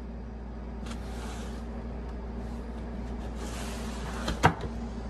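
Cardboard pizza box being handled: two short rustles of the box and its paper, then a sharp knock from the box about four seconds in, over a steady low hum.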